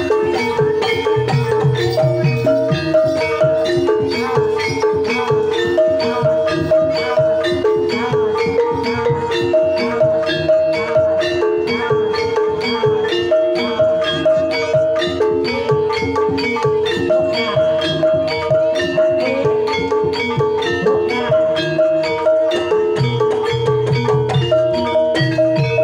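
Javanese Banyumasan gamelan playing a tayub gending: bronze kettle gongs struck with padded mallets in a fast, repeating interlocking melody over sustained ringing notes, with a kendang hand drum.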